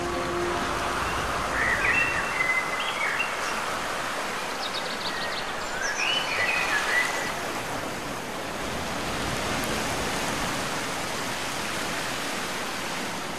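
Steady rushing outdoor noise by open water, with a few short bird chirps about two seconds in and again around six seconds.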